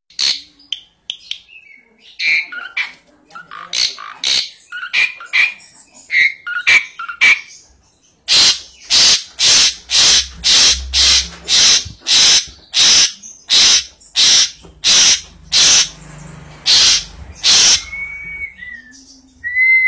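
Asian pied starling (jalak suren) calling: first a string of varied short chirps and squawks, then a long run of loud, harsh calls at about two a second, ending with a short clear whistle.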